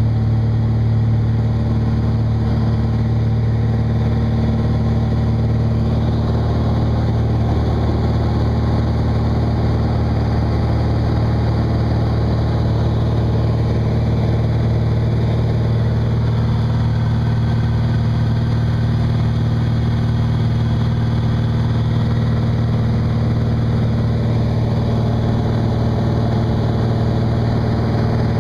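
Van's RV-9A light aircraft's piston engine and propeller running steadily and loudly.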